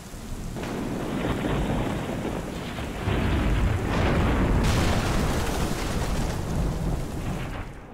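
Thunderstorm sound effect: steady rain hiss with deep rolling thunder rumbles, swelling in over the first second and dying away near the end.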